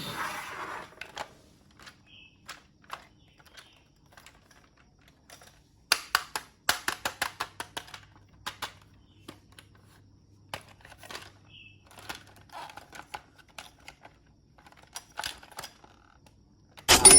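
Scattered light clicks and clatters of small plastic toy pieces being handled, with a quick run of clicks about six seconds in.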